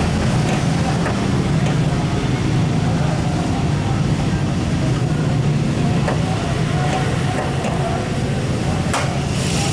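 2003 Toyota Ist's four-cylinder VVT-i engine idling with a steady low hum, with a few light clicks, the sharpest near the end.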